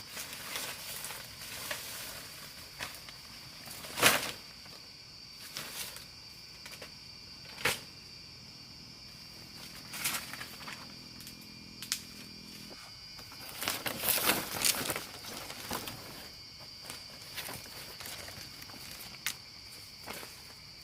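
A steady, high-pitched drone of forest insects runs throughout. Sharp knocks and rustles from someone working or moving come every few seconds, with a busy patch of them near the middle.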